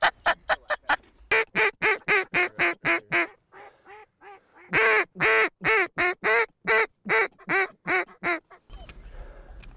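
Hand-blown duck calls quacking: a fast run of short quacks, a few soft ones, then a second run of louder, longer quacks that stops shortly before the end. It is hunters' calling to bring ducks in to the decoys.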